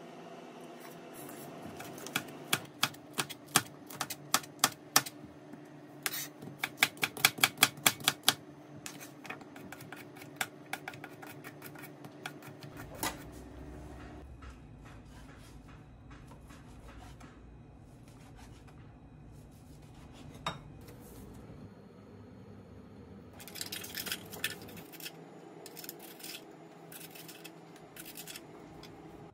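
Kitchen knife chopping on a plastic cutting board: a run of sharp chops through the first half, quickening to about four a second, then thinning out to a few scattered taps and a short cluster of clicks from handling kitchenware.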